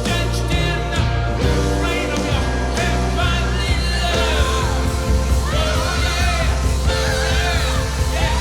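Live rock song playing: a singer's voice gliding between held notes over a steady bass line and drum beat.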